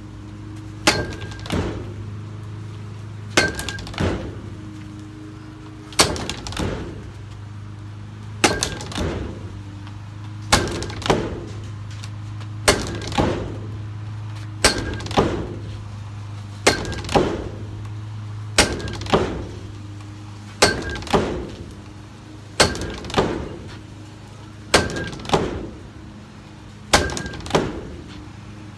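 A bat hitting a ball on a Hit-A-Way swing trainer, over and over, about every two seconds. Each sharp crack is followed about half a second later by a second knock, over a steady low hum.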